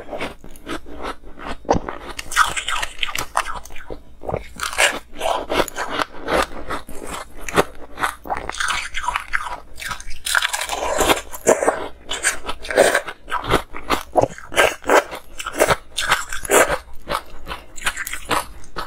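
A person biting into and chewing chunks of ice close to the microphone: sharp cracks as the ice breaks, then a dense, irregular crunching as it is chewed.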